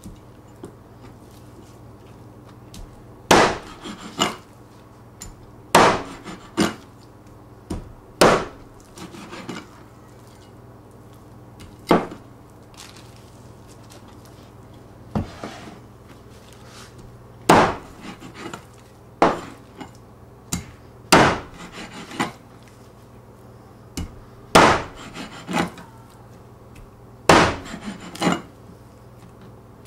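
Meat cleaver chopping raw chicken on a plastic cutting board: sharp chops every second or two, often in quick pairs, with short pauses between.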